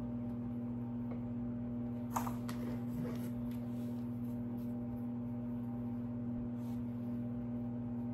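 Steady low hum of room or equipment noise, with a few light clicks and taps about two seconds in as small wooden dollhouse pieces and a pencil are handled.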